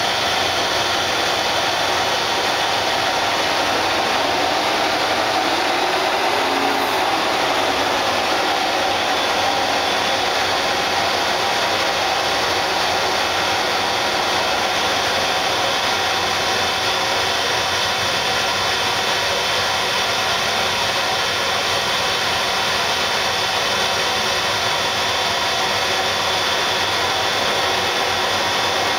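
Monarch 10EE toolroom lathe running: a steady, even motor whir with a whine and hiss, unchanging in level.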